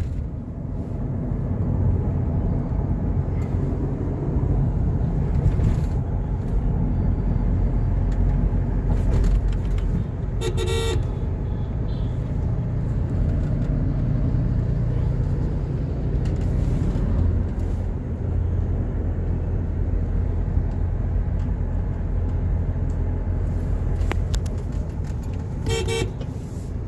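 Road and engine noise of a Toyota Innova Crysta driving along, a steady low rumble. A car horn toots briefly twice, about ten seconds in and again near the end.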